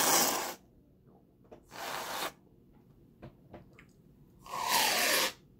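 Aerosol can of Reddi-wip whipped cream spraying in three hissing bursts. The first ends about half a second in, a short one comes near 2 s, and a last one near the end has a falling tone as the cream sputters out of the nozzle. Faint clicks come between the bursts.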